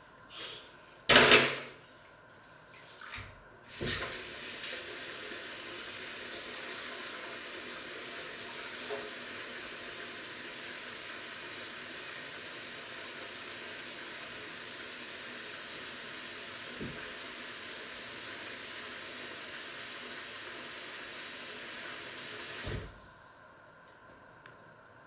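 A loud knock about a second in, then a kitchen tap runs steadily into a stainless-steel sink for nearly twenty seconds before being turned off.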